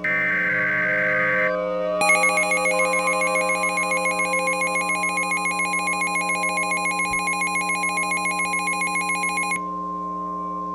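Emergency Alert System SAME header data burst, a harsh buzzing screech, ending about a second and a half in. About half a second later a loud alert tone starts, pulsing several times a second for about seven and a half seconds, then cuts off abruptly. A steady low drone continues underneath.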